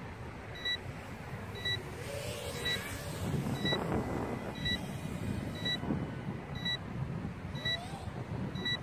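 A short electronic beep repeating about once a second, over the whine of a racing quadcopter's brushless motors (DYS SR2205 2550KV) and wind. The motor sound swells and shifts in pitch in the middle as the quad flies.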